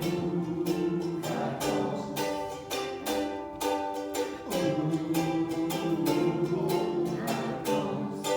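Acoustic string instrument strummed in steady rhythmic chords, an instrumental break in a folk song with no singing.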